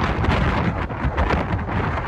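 Steady, loud rushing noise, with no tone or clear voice in it.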